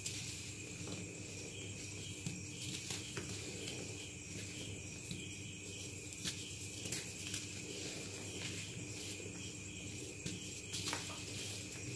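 Blue dyed gym chalk block crushed and crumbled by hand: soft crunching with scattered small crackles and clicks, the chalk dyed but not completely dried. A steady high-pitched hum runs underneath.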